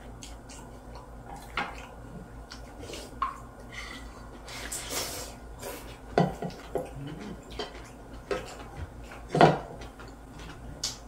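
Chopsticks and a spoon clicking and scraping against ceramic plates and a glass rice bowl at a meal, in scattered separate clinks, the loudest about nine seconds in.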